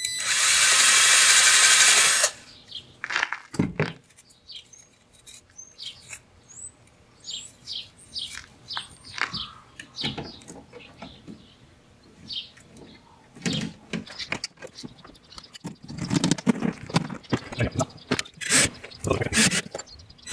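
Cordless drill with a step bit running for about two seconds, enlarging a screw hole in a plastic speaker adapter. Then birds chirping briefly several times, followed by clicks, scrapes and rustling of a car speaker and its adapter ring being fitted into the door by hand.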